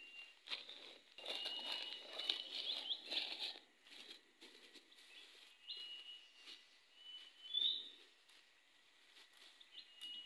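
Footsteps crunching and rustling through dry leaf litter, dense for the first three or four seconds and then fading and thinning as the walker moves off. Short high chirping calls sound at intervals throughout.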